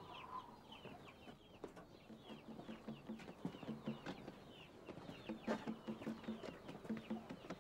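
Faint birds chirping, quick short calls repeating several times a second, with scattered light clicks; a low hum comes and goes in the second half.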